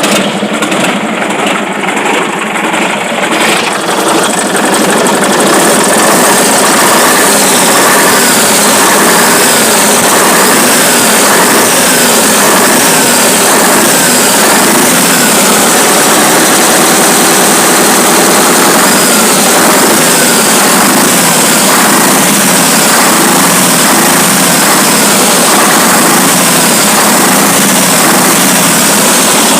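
Scania LK 141's V8 diesel engine running loud and steady, growing louder about four seconds in and then holding. It is running after about six months standing, its injection pump freshly cleaned.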